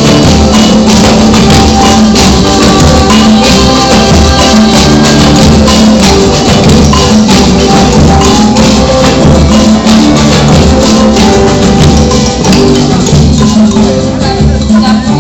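Music with percussion keeping a steady beat, playing continuously.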